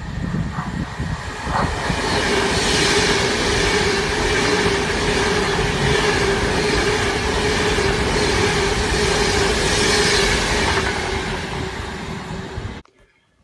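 Electric passenger train passing through a station: a steady rush and rumble of wheels on rail with a constant hum. The sound builds over the first couple of seconds and cuts off suddenly near the end.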